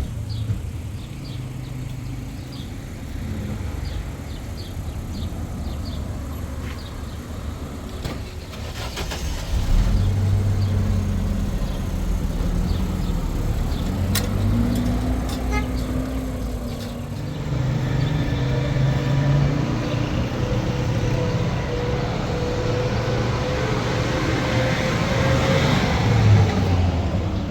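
A motor vehicle's engine running, its low note stepping up and down throughout.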